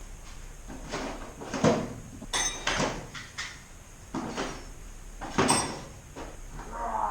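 Metal parts and hand tools being handled: a series of irregular knocks and clinks, a couple of them ringing briefly, with a short wavering squeak near the end.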